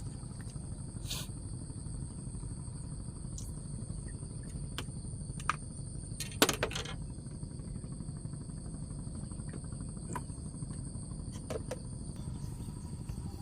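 Insects trilling steadily at a high pitch over a constant low rumble, with a few sharp clicks, the loudest about six and a half seconds in.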